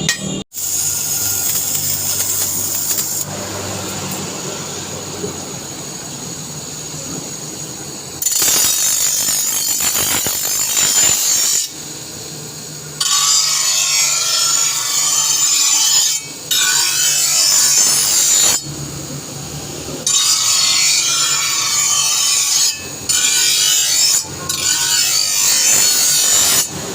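Power tool running steadily, then working steel in loud hissing bursts of one to three seconds with short pauses between, from about eight seconds in.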